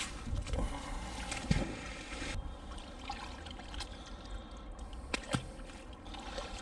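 Water trickling and sloshing, with a few sharp clicks: one about one and a half seconds in and two close together about five seconds in.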